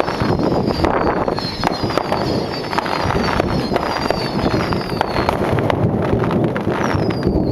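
Aerial fireworks shells bursting in a dense, continuous barrage, the closing volley of a display: overlapping bangs and crackle run together without a break, with thin high whistles gliding down in pitch.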